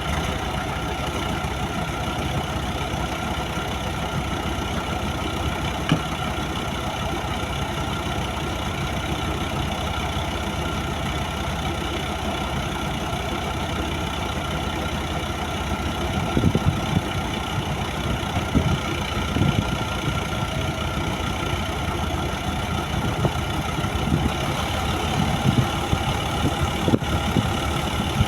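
A 55-ton crane's diesel engine running steadily at low revs, with the level rising and falling a few times in the second half.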